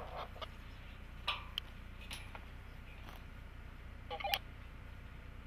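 A few separate sharp metal clicks and clinks from hands and hardware working on an aluminium launch tower, over a steady low rumble. A short louder burst comes about four seconds in.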